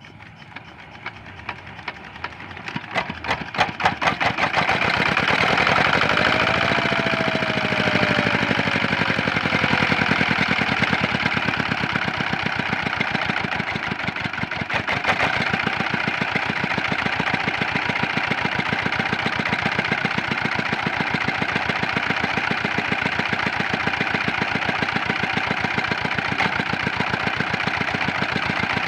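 Rice-field hand tractor's diesel engine being hand-cranked: its beats speed up and grow louder over the first few seconds as it catches, then it settles into steady running with a knocking beat.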